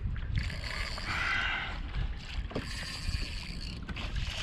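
Wind on the microphone and ocean water lapping against a plastic kayak hull, with a brief louder rush of noise about a second in.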